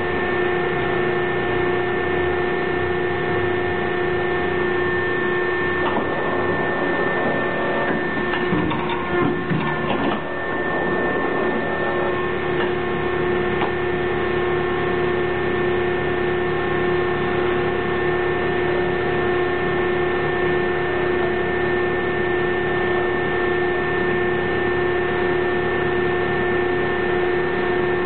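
Associated Pacific hydraulic die-cutting press idling with a steady hum and a couple of fixed tones from its running pump. Between about six and twelve seconds in, a few knocks and rustles come from the die and the cut foam pieces being handled on the press bed.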